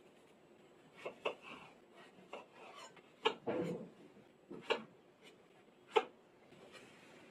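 Kitchen knife cutting strawberries in half on a wooden cutting board: several sharp taps of the blade hitting the board, with soft slicing and scraping between them.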